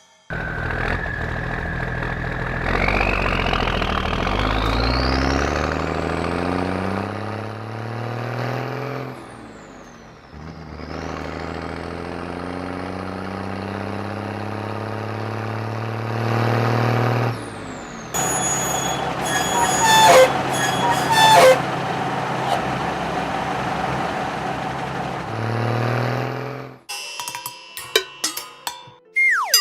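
Cartoon garbage-truck sound effects: the engine revs up with a rising whine, eases off, then runs steadily again, with metallic clanging and clatter partway through and a few light clicks and dings near the end.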